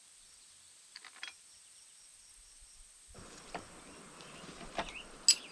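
Quiet, scattered metal clicks and clinks of a brush-cutter blade being fitted back onto a string trimmer head, a couple about a second in and several sharper ones in the second half, the loudest near the end.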